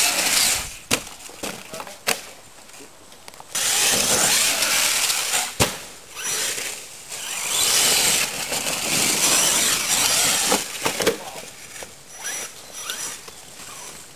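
Radio-controlled monster truck's brushless electric motor whining in repeated bursts of throttle, tyres scrabbling on loose dirt. Several sharp knocks of the truck hitting the ground come through between the bursts.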